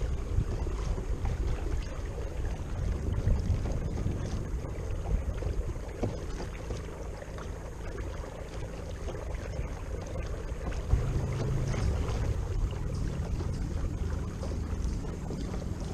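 Wind buffeting the microphone and water lapping at a moving kayak's hull, over a low steady hum from its Watersnake T24 electric trolling motor.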